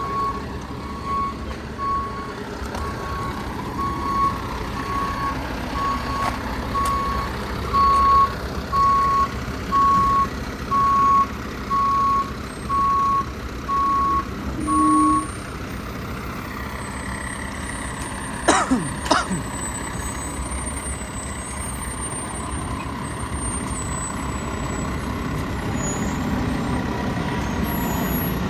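Mack Granite roll-off truck's backup alarm beeping a single steady tone about once a second while the truck reverses, over its running diesel engine. The beeping stops about halfway through and the engine carries on, with a brief sharp sound about two-thirds of the way in.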